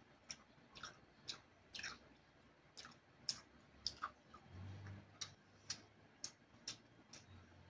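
Mouth clicks and lip smacks of a person chewing rice and fried fish by hand, short sharp clicks at about two a second with a pause around the moment a new bite goes in.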